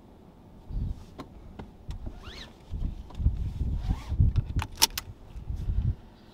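Wind rumbling on the microphone in uneven gusts, with a few sharp clicks and a short squeaky glide a little over two seconds in.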